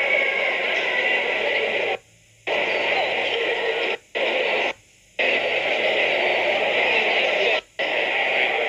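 Steady hiss-like noise from a screen playing an old show-ring video recording, cutting out abruptly to near silence four times, for about half a second twice and briefly twice.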